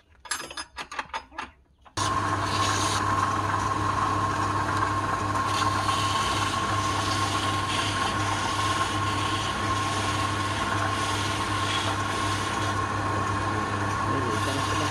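Wood lathe running steadily, a low hum with a steady whine over broad noise, while the hollow wooden cylinder spins against a hand-held turning tool. It starts abruptly about two seconds in, after a quick run of clicks.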